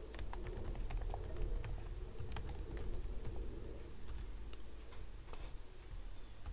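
Typing on a computer keyboard: irregular, quick keystroke clicks, over a low steady background hum.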